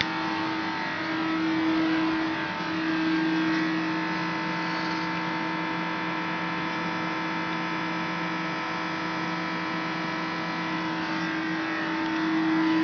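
Steady hum of heavy workshop machinery: a constant low tone with fainter higher tones over a noisy background. It swells briefly about two seconds in, again a second and a half later, and near the end.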